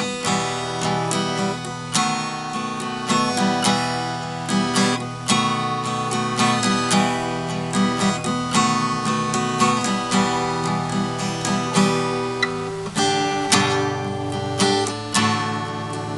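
Acoustic guitar playing an instrumental passage alone, chords strummed and picked with several notes a second, without singing.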